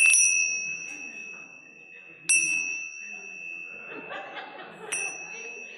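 A chime struck three times, about two and a half seconds apart, each strike ringing on at the same clear high pitch and fading slowly; the chimes call the gathering to the start of the service.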